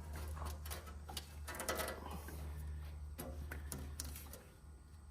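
Scattered light clicks and taps of hands working a link V-belt onto the backhoe's pulleys, over a steady low hum that drops away near the end.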